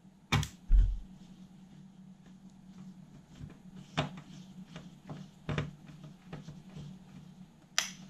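Screwdriver turning a screw into the sheet-metal cover of a Sony TC-K611S cassette deck: scattered metallic clicks and ticks as the screw turns and the casing shifts, with a heavier knock just under a second in, over a steady low hum.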